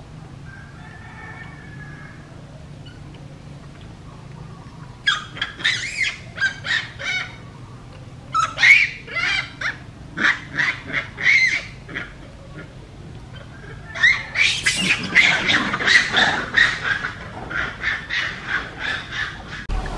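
Young macaque giving short, high-pitched calls in three quick bouts of about two to three calls a second, starting about five seconds in. The last bout is the longest and loudest.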